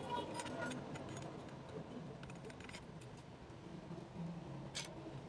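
Light metallic clinks and rattles of clutch plates and parts being handled and fitted by hand inside a transmission case: several quick clinks in the first second and a sharper one near the end.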